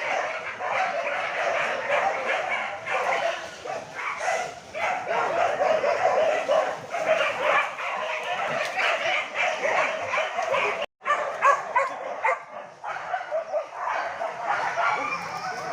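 A pack of hunting dogs barking and yelping continuously on a chase, many voices overlapping. The sound drops out briefly about eleven seconds in.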